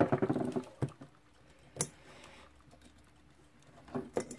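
Scattered light clicks and taps of small hand tools and clock parts handled on a workbench. There is a sharper click about two seconds in and a quick run of clicks near the end as a thin tool works inside the clock's metal case.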